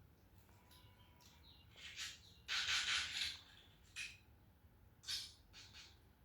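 Domestic cats hissing at each other in a fight: several sharp, breathy hisses, the longest and loudest about a second long near the middle, with shorter ones after it.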